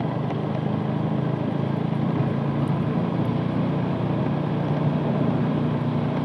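Motorcycle engine running steadily while riding along a dirt road, a constant low hum under an even rushing noise.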